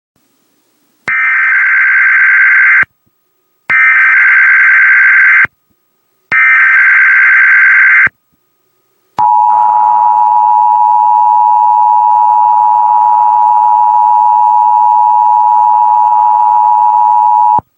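Emergency Alert System tones: three short bursts of the SAME digital header data, each under two seconds with a brief gap between, followed about a second later by the steady two-tone EAS attention signal held for about eight seconds before cutting off.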